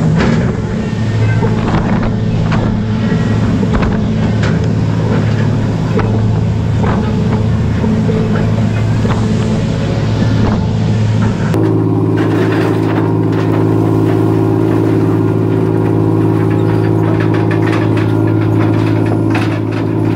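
A crab boat's engine and deck machinery droning steadily, with scattered metal clanks and knocks as steel crab pots are hauled on the crane and handled on deck. About halfway through, the drone abruptly changes to a different, higher set of tones.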